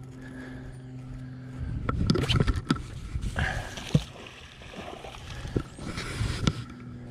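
A magnet fishing magnet on a rope cast into a pond: rope and handling noise with sharp clicks as it is swung and thrown, then a splash as the magnet lands in the water. A steady low motor hum is heard at first.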